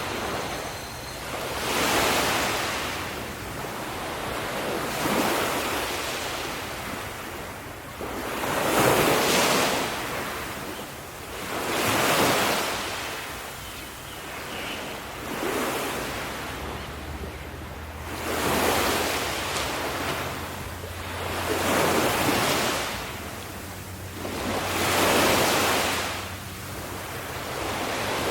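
Ocean waves breaking on a shore, each wave swelling and washing out in a hiss, about one every three seconds, with a low steady hum underneath in the second half.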